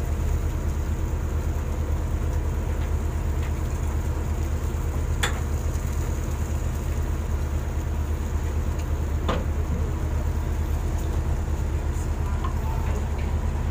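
Shrimp trawler's engine running with a steady low drone, with two sharp metallic knocks about five and nine seconds in.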